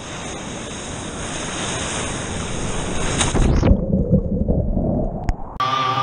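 Ocean surf and sloshing water picked up by a camera sitting at water level, with wind on the microphone. About two-thirds through, the sound turns muffled and low, with a single click. Guitar music comes in near the end.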